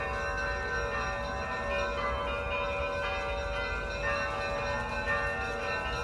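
Russian Orthodox church bells ringing, many bell tones sounding together and ringing on without a break, with a low rumble underneath.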